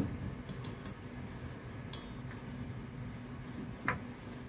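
Quiet kitchen handling sounds around a stainless steel mixing bowl: a sharp knock right at the start, then faint scattered clinks and a short click near the end, over a steady low hum.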